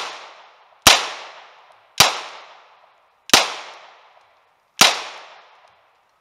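Glock 17 Gen 4 9mm pistol firing four single shots, about one to one and a half seconds apart, each followed by a fading echo. The old British Mk2z submachine gun ammunition fires each time without a misfire.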